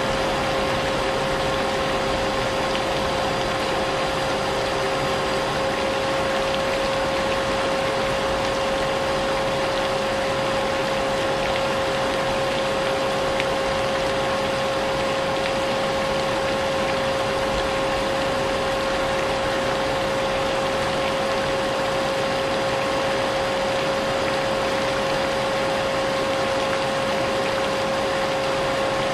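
Vacuum cleaner running steadily with a constant whine, mixed with the hiss of falling rain.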